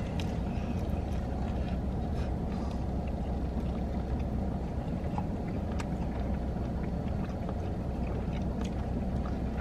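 Steady low rumble of a parked car running, heard from inside the cabin, with a few faint clicks on top.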